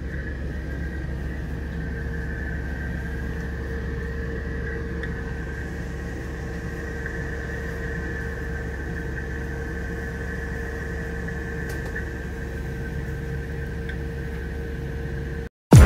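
Steady machinery hum of a ship's bridge, a low drone with a constant mid-pitched tone and a higher whine. It cuts off just before the end, where music starts.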